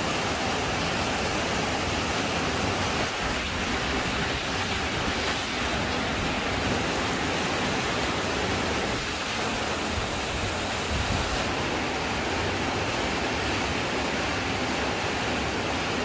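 Heavy downpour of rain: a dense, steady hiss that holds at one level.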